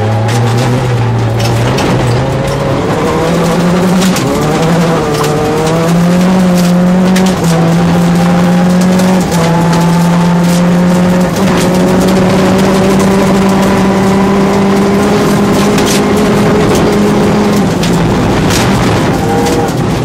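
Rally car engine heard from inside the cabin, pulled hard through the gears on a gravel straight: the revs climb, dip briefly at each upshift about four times, hold flat out, then drop away near the end as the driver lifts. Sharp ticks of gravel hitting the car run through it.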